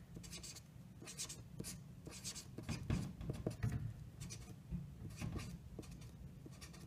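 Sharpie marker writing on paper: the felt tip scratching in short, irregular strokes, faint.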